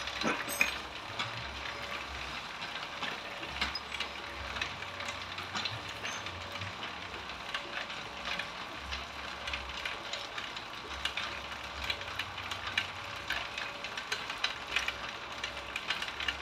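Electric-motor-driven bamboo slitting (irat) machine running with a steady hum, its flywheel turning. Irregular sharp clicks and rattles come as bamboo strips are fed through it and pulled out.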